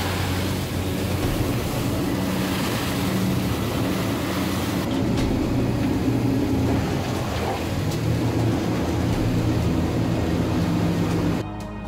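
Rescue boat's engine running steadily under way, with wind and water rushing past the hull, heard from inside the wheelhouse.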